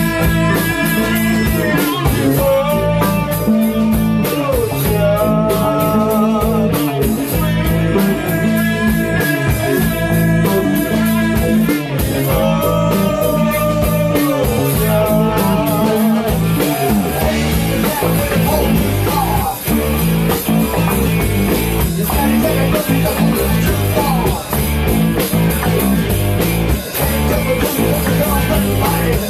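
Rock band playing live: electric guitar and drum kit, with a singer holding long sung notes through roughly the first half. After about 16 seconds the long vocal lines stop and the band plays on instrumentally, guitar to the fore.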